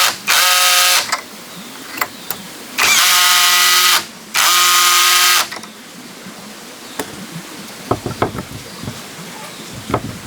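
Power drill running in three short bursts at a steady pitch, as when driving screws into wood, followed by a few light knocks and clicks of handling.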